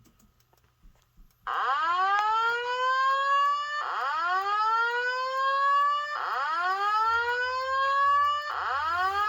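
Simplex voice-evacuation fire alarm speaker sounding the slow whoop tone: a rising sweep that climbs quickly and then levels off, repeated about every two and a third seconds. It starts about one and a half seconds in, and four whoops sound, the last cut off at the end.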